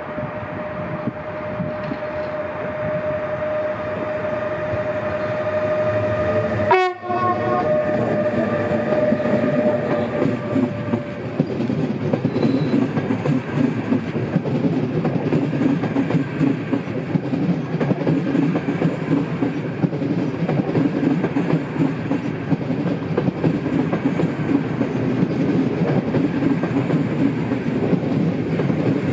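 Passenger train pulling in along a station platform. A steady high tone lasts for about the first ten seconds, then the rumble and clatter of the carriages rolling past the platform takes over and grows louder.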